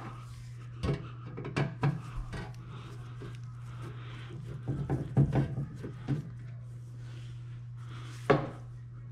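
Hand work with a quarter-inch magnetic nut driver on the screws of a dishwasher's kick plate: scattered small clicks and scraping of the tool on metal, busiest about five seconds in, with one sharper knock near the end.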